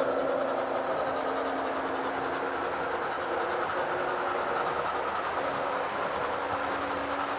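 O gauge model train running steadily along the track, its wheels rolling on the rails with a faint steady hum.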